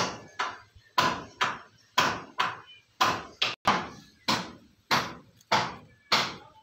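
A run of about a dozen sharp knocks, roughly two a second in a slightly uneven rhythm, each with a brief ringing tail.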